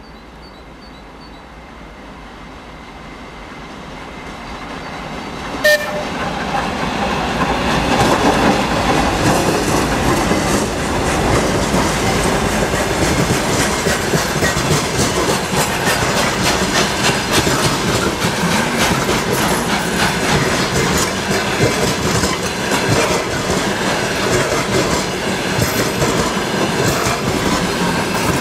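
A pair of GE C36-7i diesel-electric locomotives approaching with a long freight train, their sound growing steadily louder over the first six seconds, with one sharp click about six seconds in. Then the freight wagons roll past close by: a loud, steady rumble full of rapid clicking and clacking of wheels over the rail joints.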